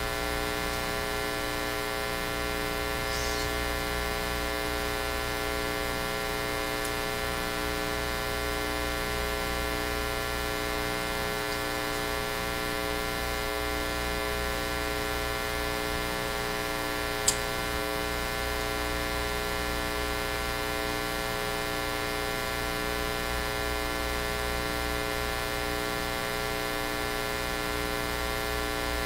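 Steady electrical mains hum and buzz from a powered-up amplified sound system with no music playing. There is one sharp click a little past the middle.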